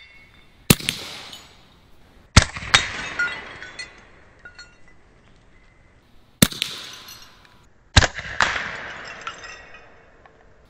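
Bintac T9 PCP air pistol firing four loud shots at plates. Each crack is followed by the plate shattering and its pieces clinking and ringing as they fall.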